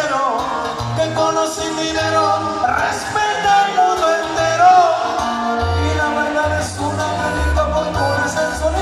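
Live regional Mexican music: a male singer with a band, accordion melody over a pulsing bass line.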